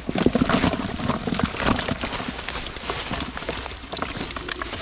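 Wet keepnet emptied into a bucket: a steady patter of dripping and splashing water with many small wet slaps as a mass of live fish slides into the bucket.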